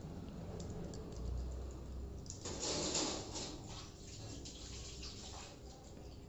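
Hand kneading and stirring a moist flattened-rice mixture (chuda chakuda) in a steel bowl: soft squishing with scattered light clicks and crackles. A short rushing hiss comes about two and a half seconds in.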